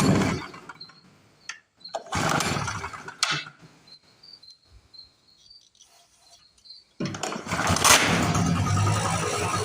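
Small two-stroke portable generator engine being started: a brief burst about two seconds in that dies away, then about seven seconds in it catches and keeps running steadily. Crickets chirp faintly in the quiet gap.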